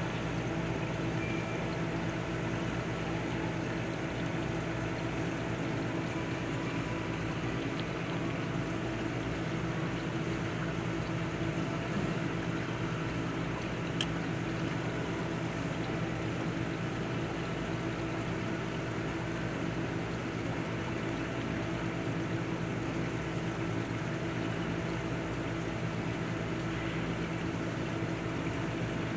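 Steady hum of aquarium equipment, pumps running without change, with one brief click about halfway through.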